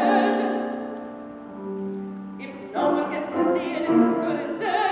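A woman singing a Broadway show tune in a trained voice to grand piano accompaniment. A chord fades over the first second or so, then the music comes back in strongly near the middle.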